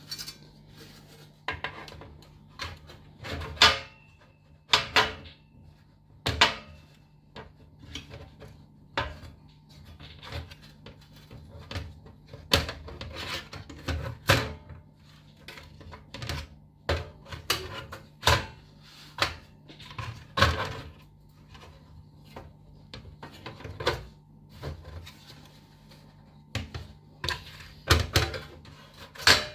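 Sheet-metal casing of a DVR recorder being handled and fitted back onto its chassis: irregular clanks, taps and scrapes, some sharp, over a faint steady hum.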